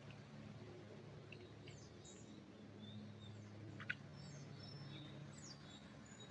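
Faint, scattered songbird chirps over a steady low hum, with one sharp click a little before four seconds in.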